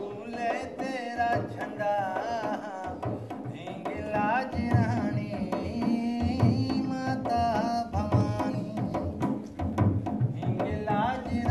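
Double-headed barrel drum (dhol) played by hand in a steady run of strokes, with a voice singing long wavering, gliding notes over it.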